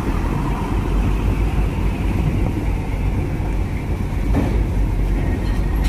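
Steady low rumble of heavy vehicle engines running.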